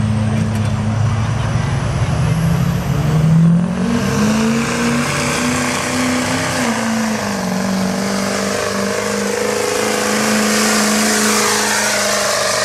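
Ford Super Duty diesel pickup pulling a weight-transfer sled at full throttle. The engine's revs climb over the first few seconds, with a faint high whistle rising above them, then hold high under load, dipping briefly about halfway through before steadying again.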